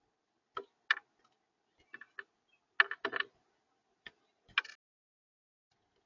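Irregular sharp clicks and taps of a small bird pecking seed on a plastic feeder tray, about a dozen in all, with the loudest cluster about three seconds in.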